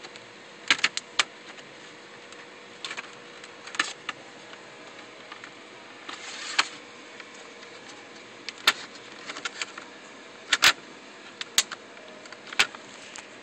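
Plastic snap clips of a Toshiba Satellite C650 laptop's screen bezel clicking loose as the bezel is peeled off by hand: about a dozen sharp, irregular clicks, with a short rustle of plastic handling about six seconds in.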